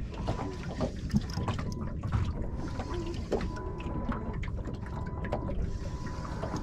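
Small waves lapping and slapping irregularly against a small boat's hull, with a faint steady high whine running underneath.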